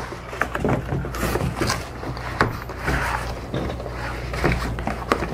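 Cardboard camera box and paper sleeve being handled: irregular rustles, scrapes and light knocks, over a low steady hum.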